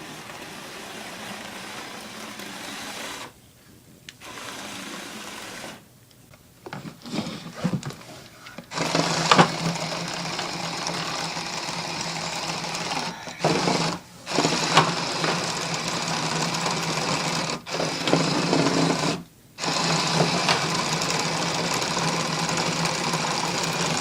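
Small electric motor and gearing of a motorized Lego bulldozer whirring, switched on and off repeatedly in runs of a few seconds with short pauses between.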